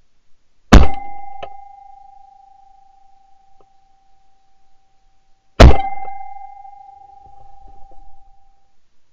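Two shotgun shots about five seconds apart, heard from a gun-mounted camera, each followed by a steady ringing tone that fades over two to three seconds.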